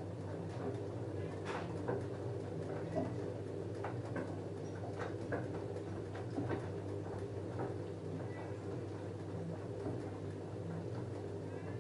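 LG F10A8HDS5 front-loading washing machine washing a load of jeans: steady motor hum as the drum tumbles, with irregular soft knocks and swishes from the wet clothes and water.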